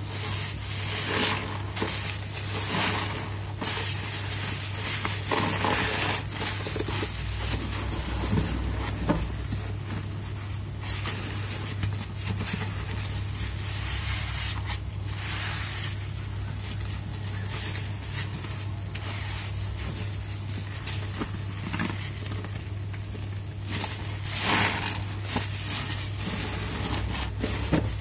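Soap-soaked foam sponges, cut from mattress foam, squeezed and kneaded by gloved hands: wet squelching and the crackle of thick suds in irregular bursts, over a steady low hum.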